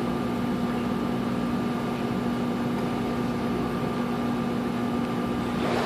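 Steady machine hum from hotel pool-room equipment: a constant low tone with a fainter higher tone over an even hiss, unchanging throughout.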